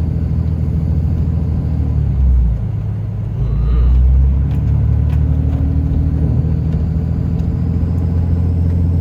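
Cummins diesel truck engine running steadily under load while towing, with a brief swell in its low drone a little after two seconds and a stronger one around four seconds.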